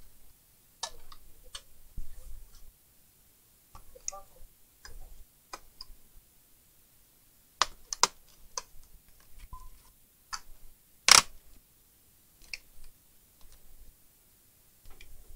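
Irregular small clicks and taps of hands and tools working on a laptop's plastic case during disassembly, with one sharper knock about two-thirds of the way through.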